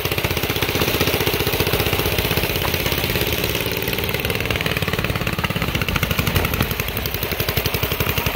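Small single-cylinder engine running under way, a steady rapid putter whose pitch drifts up and down a little with the throttle.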